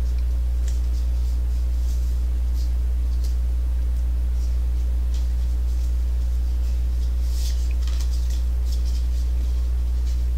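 Steady low hum throughout, with faint scattered rustles and ticks of trading cards and a foil card-pack wrapper being handled, a little busier near the end.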